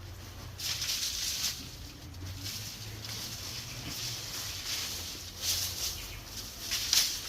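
Scraping and rustling of newspaper and chicken litter being scraped up and shovelled off a coop floor, in a few bursts of hissing noise, the strongest near the end.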